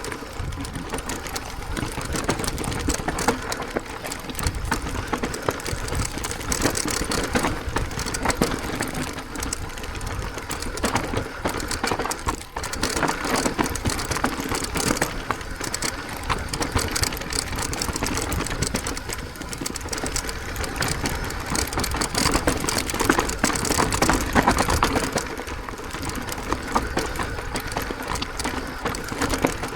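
E-mountain bike's disc brakes grinding under hard, continuous braking, mixed with the bike rattling over rough, rocky ground. The pads are being worked to the edge of fading.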